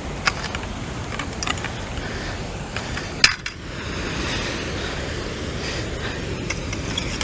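Scattered light clicks and clinks of hard objects being handled, with one sharper knock a little over three seconds in, over a steady background hiss.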